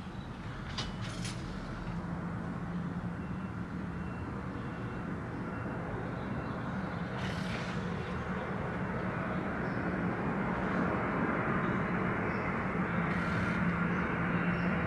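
Steady low mechanical hum under an even wash of noise, slowly growing louder, with a few light clicks near the start.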